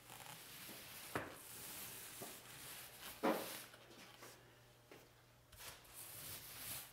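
Paint roller on an extension pole being rolled across a ceiling: a faint, sticky hiss that swells and fades with the strokes. Two brief knocks come about a second in and again a little past three seconds.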